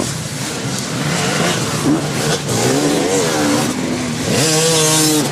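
Dirt bike engines revving hard under load as riders climb a steep hill, the pitch rising and falling with the throttle. Near the end one bike's engine sweeps up to a high, steady rev, the loudest part.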